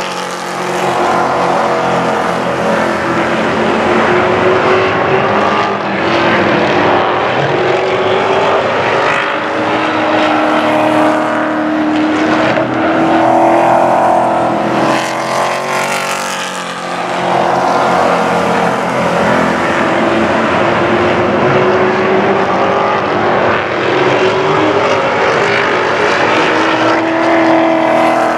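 Several Pro Truck race trucks running at speed around a paved oval, their engines rising and falling in pitch over and over as they accelerate, lift and pass.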